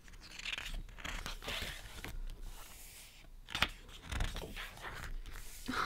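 Pages of a thick photobook being handled and turned: soft paper rustling and swishing, with one sharper paper sound about three and a half seconds in.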